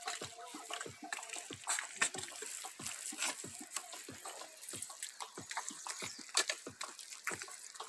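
Wet mud squelching and smacking, a quick irregular run of short wet clicks and slaps.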